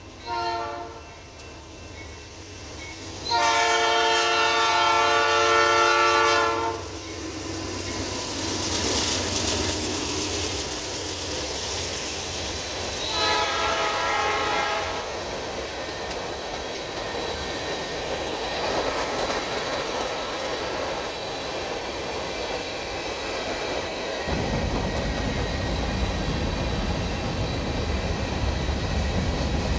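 Diesel locomotive air horn sounding for a grade crossing: a short blast at the start, a long loud blast about three seconds in, and another blast near the middle. Then the steady rumble and wheel clatter of empty covered hopper cars rolling past, growing deeper near the end.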